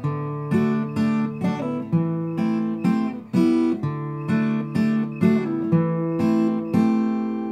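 Acoustic guitar strummed in a steady rhythm, about two chord strokes a second, each ringing on until the next.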